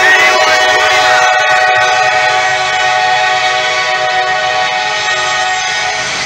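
Locomotive multi-chime air horn sounding one long, steady chord, slowly getting quieter.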